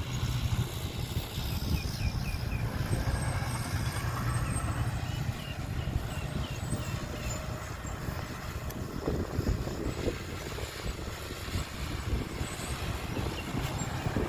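A heavy vehicle's engine running with a steady low rumble, a dump truck or similar heavy machine.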